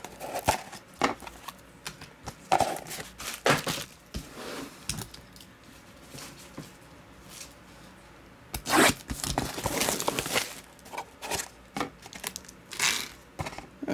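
Plastic shrink-wrap being torn and crinkled off a small cardboard trading-card box, with cardboard scraping and tapping as the box is handled and slid open. The loudest stretch of tearing comes about two-thirds of the way in.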